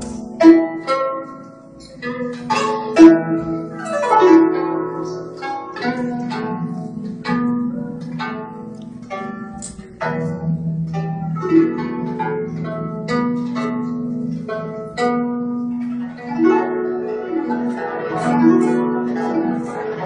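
Guzheng (Chinese plucked zither) played solo: quick runs of plucked notes over ringing low notes.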